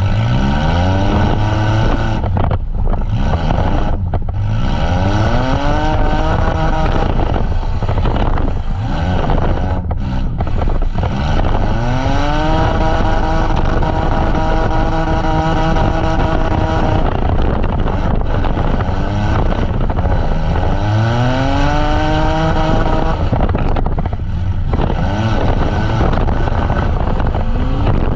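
Demolition derby van engines revving hard over a steady low rumble. An engine's pitch climbs steeply and then holds at full throttle about five times as the vans accelerate.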